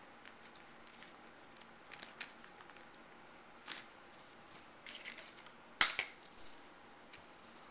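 Scattered rustling and light clicks of paper packaging and leaflets being handled on a table, with one sharp click about six seconds in.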